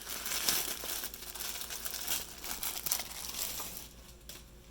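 Packaging crinkling and rustling as it is handled and unwrapped, a dense run of crackles that dies down near the end.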